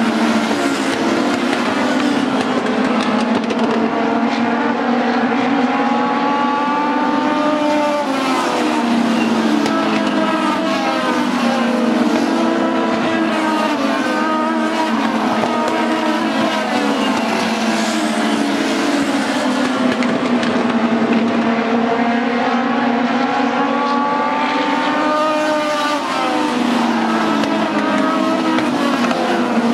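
Several Legends race cars' Yamaha motorcycle engines running at speed around a short oval. The engine notes climb and drop back again and again as the cars accelerate and lift off, with cars passing and overlapping.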